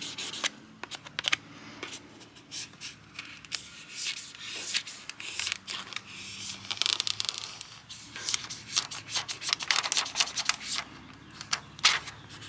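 Plastic squeegee card rubbing and scraping over a screen-protector film as it is pressed down onto a display screen, with the thin plastic backing liner crinkling as it is peeled away; an uneven run of short scrapes and clicks.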